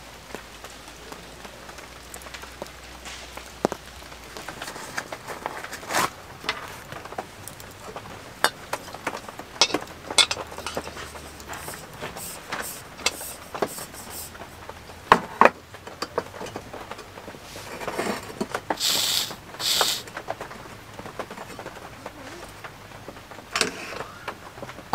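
Soft rain, then sharp metal clicks and clanks as a small camping gas burner is handled and screwed onto a gas canister, with two short hisses about three-quarters of the way through.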